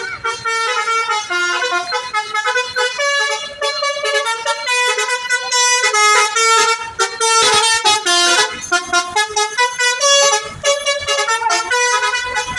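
Basuri telolet multi-tone air horn on a Maher Trans bus, loud, playing a quick melody that jumps from note to note without a break.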